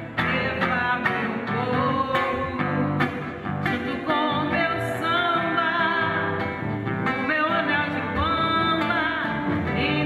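A woman singing a Brazilian MPB or bolero song to a strummed acoustic guitar, in a live performance.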